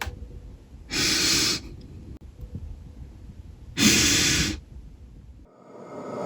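Two loud, heavy breaths, each under a second long, over a low rumble. Near the end the rumble gives way to a rising, steady drone with several held tones.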